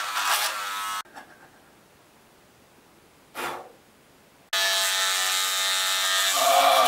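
Electric beard trimmer buzzing steadily as it cuts through a thick beard. It runs for about a second, stops abruptly, and comes back on suddenly in the second half, where its pitch shifts near the end. A brief noisy sound comes in the quiet gap between.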